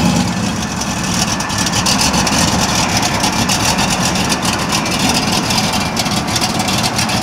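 1986 Chevrolet Camaro IROC's carbureted V8 idling steadily, loud and raw through its headers, with the exhaust cut off just behind them at the transmission.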